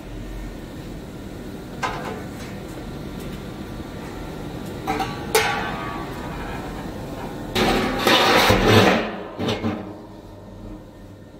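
Metal diffusion pump core knocking and scraping against the pump body as it is lowered in: a few sharp knocks with a short metallic ring, then a longer, louder clatter about eight seconds in, over a low steady hum.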